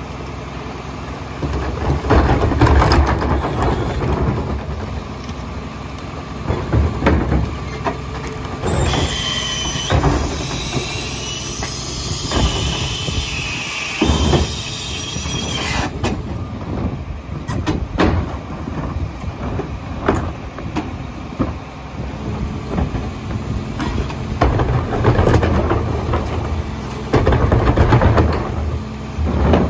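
Rear-loading garbage truck at work: the diesel engine runs and revs up as the hydraulic cart tippers and packer operate, with repeated clanks of carts and metal against the hopper. A high metallic squeal from the packing mechanism runs from about 9 to 16 seconds in.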